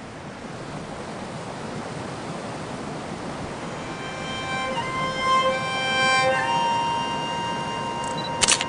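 Rushing white water fading in from silence and swelling, joined about four seconds in by fiddle music playing held notes and a melody over it. A short sharp click, doubled, comes near the end.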